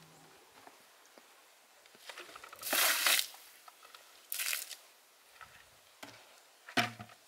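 Plastic containers being handled and set down: a few short rustling, scraping bursts, the loudest about three seconds in, and a sharp knock near the end.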